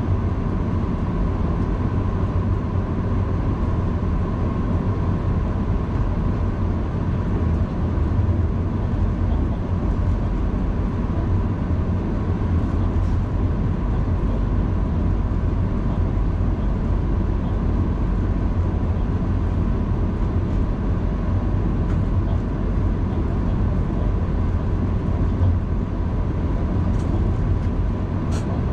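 Diesel locomotive running along the track, heard from inside its cab as a steady, even rumble with a thin steady whine over it. A few faint clicks come near the end.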